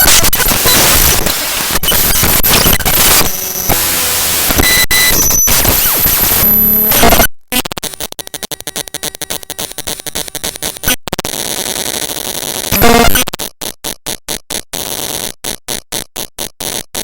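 Raw bytes of the ffmpeg.exe program file played back as audio: harsh digital static with thin steady tones for about seven seconds. After a brief dropout it turns to a quieter buzzing chatter, with a loud burst just before the last few seconds, which stutter on and off several times a second.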